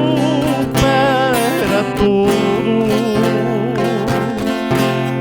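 Sertanejo music: acoustic guitars strumming steadily under a wavering melody line with vibrato.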